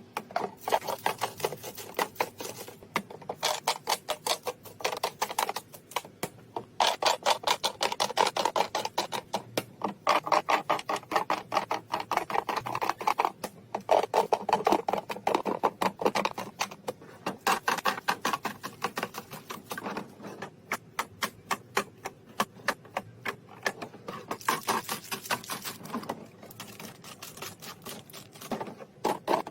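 Rapid clicking and tapping of items and packaging being handled and set down, several sharp clicks a second in runs with brief pauses between them.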